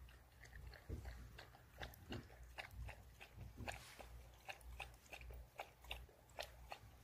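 Jindo dog lapping water from a plastic bowl: quick, faint, splashy laps, several a second.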